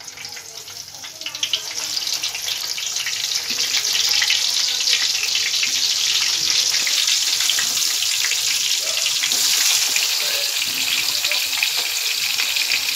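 Stuffed bitter gourds sizzling and crackling in hot oil in an iron kadhai as they are put in to fry. The sizzle builds over the first few seconds as more gourds go in, then holds steady and loud.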